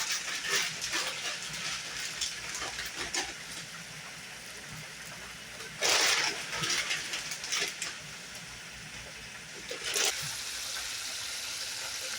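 Steak frying in a pan: a steady sizzle, with short, louder swells of hissing about six seconds and ten seconds in.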